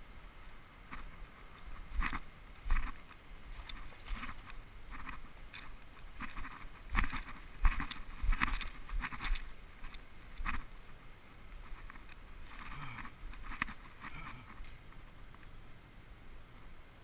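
A hooked largemouth bass being brought in and landed by hand: irregular splashes, scrapes and sharp knocks of handling and of moving over rocks, busiest and loudest in the first two-thirds, then quieter.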